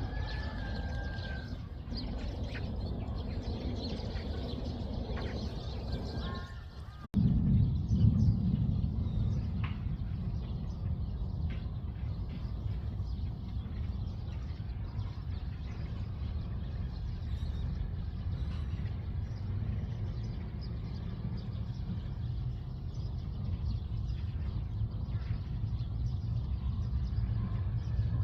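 Steady low rumble of background traffic, with a few short bird chirps in the first seconds. The sound cuts abruptly about seven seconds in, and the rumble is louder after the cut.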